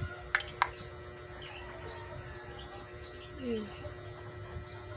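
A bird chirping, three short rising chirps about a second apart. Less than a second in come two sharp clicks as a powder container is snapped open.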